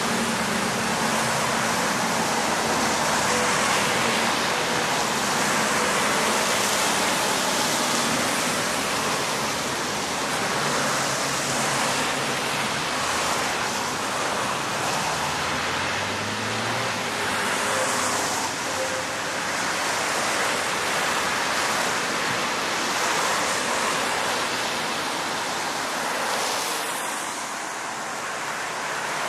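City traffic on wet streets after rain: a steady hiss of tyres on wet road, swelling every few seconds as cars pass, with engines humming low underneath.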